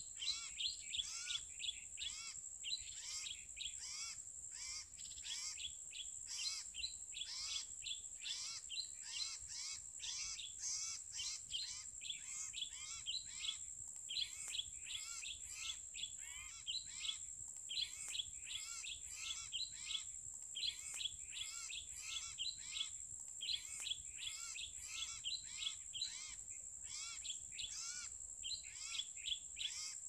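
Common iora (sirtu/cipoh) calls played from an MP3 lure to draw in wild ioras: a fast, unbroken run of short repeated chirping notes. A steady high-pitched whine runs behind them.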